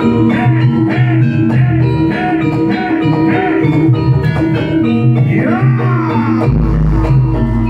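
Live jaranan music from a gamelan-style ensemble: drum strikes and held, ringing metal tones, with a sliding melody line above. A deep low tone comes in about six and a half seconds in.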